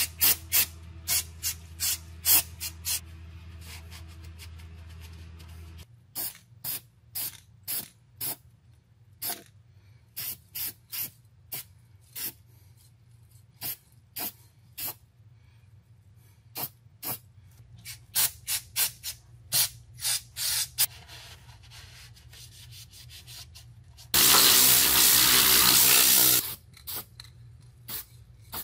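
Aerosol spray can sprayed in dozens of short puffs, then one long spray of about two seconds near the end, the loudest sound. A low steady hum stops about six seconds in.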